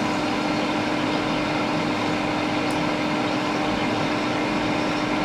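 Steady rush of air with a constant low hum from a hot air rework station and a fume extractor fan while the U7100 chip is being heated off a MacBook logic board.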